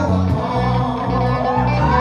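Live band music: electric guitar and bass guitar over a steady low bass line, with a man singing from about a second in.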